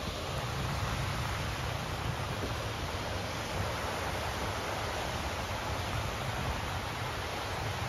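Surf breaking and washing on a beach: a steady rushing noise with a low rumble and no single crash standing out.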